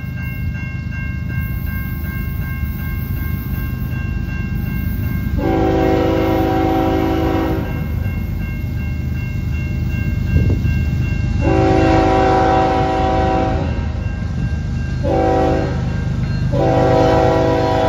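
Air horn of a Union Pacific diesel locomotive leading a freight train, sounding the grade-crossing signal: two long blasts, a short one, then a long one held to the end. Under the horn runs the steady rumble of the approaching diesel engines, growing slowly louder.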